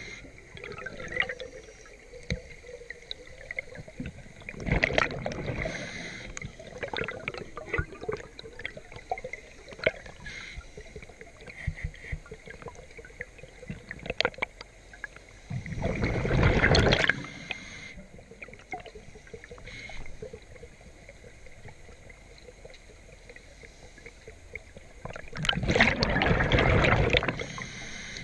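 A scuba diver's regulator venting exhaled bubbles underwater: three long bursts of bubbling about ten seconds apart, one with each breath out, with a faint hiss and small ticks in between.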